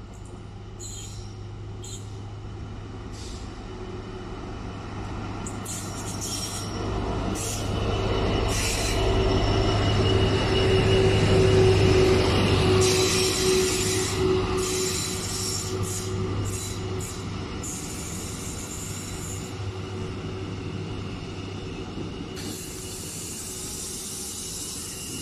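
A Class 66 diesel locomotive (two-stroke V12) hauling a sleeper train passes close by. Its engine drone swells to its loudest about 11–12 seconds in as the locomotive goes past, with short high squeals from the wheels. The coaches then roll by with a steady hiss.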